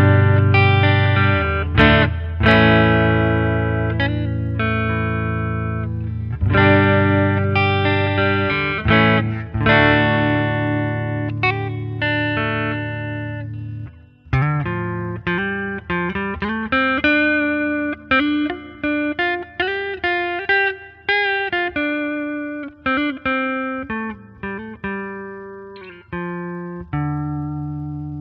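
Fender Telecaster electric guitar played through an amp modeler's clean Fender Twin model. Strummed chords are left to ring for about the first half, then quicker single-note lines follow, ending on a chord that rings out.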